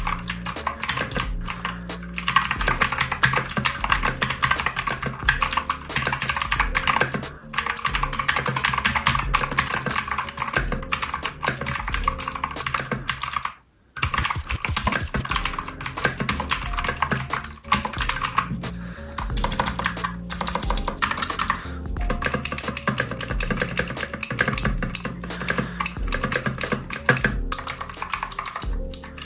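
Redragon Fizz K617 mechanical keyboard being typed on quickly: a dense, continuous run of key clicks with a brief pause about halfway through, over background music.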